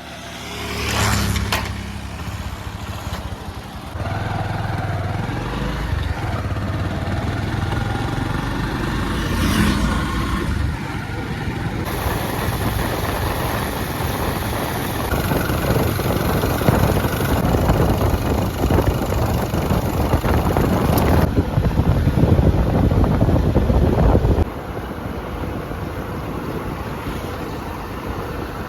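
JCB 3DX backhoe loader's diesel engine running steadily and loudly as the machine drives, with an abrupt drop in loudness near the end.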